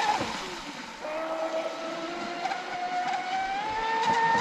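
Whine of a Traxxas Spartan RC speedboat's brushless motor (a 1600kv 4082) running across the water. It drops away just after the start, then comes back about a second in, climbing slowly in pitch and getting louder as the boat speeds up.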